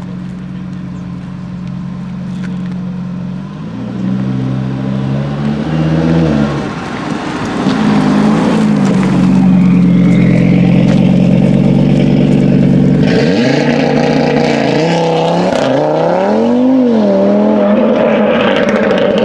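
Audi RS3 8V's five-cylinder engine through a Milltek exhaust, running and being revved. The pitch climbs twice in the first seven seconds, holds high and steady for a while, then swoops up and down in quick blips near the end, getting louder overall.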